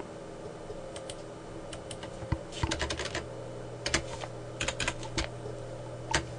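Typing on a computer keyboard: a few scattered keystrokes at first, then quick runs of key clicks from about two and a half seconds in, over a low steady hum.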